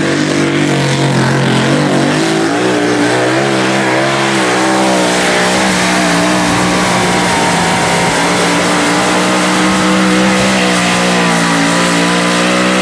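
Supercharged Hemi V8 of a pulling tractor running at full throttle under load as it drags the sled, loud and continuous. Its pitch climbs about two seconds in, then holds steady.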